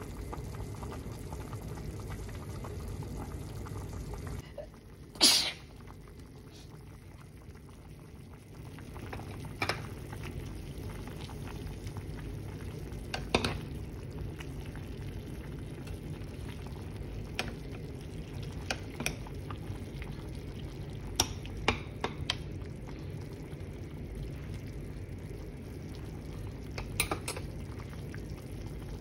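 Pork and vegetable soup bubbling steadily at the boil in a stovetop pan. A loud sharp click comes about five seconds in, and a few fainter clicks follow through the rest.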